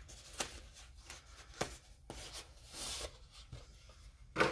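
Packaging rustling and crinkling as it is handled and opened by hand, with a few short sharp clicks and a longer rustle about two to three seconds in. The loudest sound is a brief rustling burst near the end.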